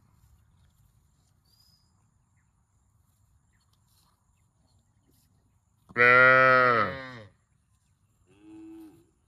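A cow mooing: one loud moo about six seconds in, rising then falling in pitch, followed by a shorter, fainter moo near the end.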